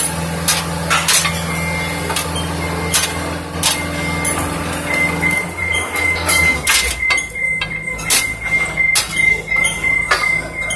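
Construction-site metal clanking: sharp knocks about once or twice a second over a steady engine hum. The hum cuts out about two-thirds of the way through, and a steady high whine comes in about halfway.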